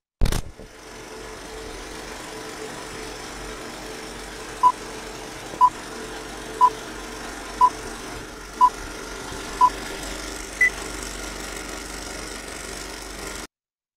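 Old-film countdown leader sound effect: a film projector's steady whirr and rattle after a thump at the start, with six short beeps a second apart and then one higher beep. The sound cuts off suddenly near the end.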